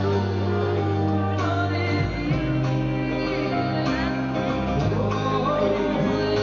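Pop-rock band playing a song live, with a lead vocal over guitar and sustained bass notes.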